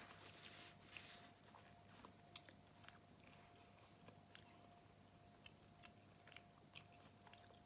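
Faint chewing of a mouthful of chana masala, whole chickpeas in curry sauce, with soft scattered mouth clicks.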